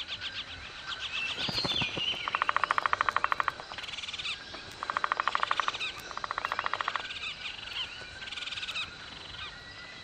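Yellow-tufted woodpeckers calling to one another: three fast rattling bursts of about a second each, with higher chattering note series between them.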